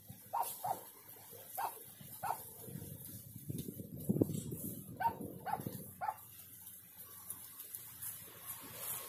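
A dog barking: short sharp barks, singly and in pairs, that stop about six seconds in. Under the barks, a low rustling of hands pulling weeds from loose soil, loudest about four seconds in.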